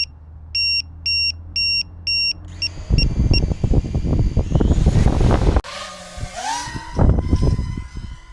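A row of evenly spaced electronic beeps, about one every 0.6 seconds, then three quicker short beeps. About three seconds in, the Mario5 FPV quadcopter's motors spin up loudly, with a fast flutter and wind buffeting. A rising whine follows as the throttle climbs.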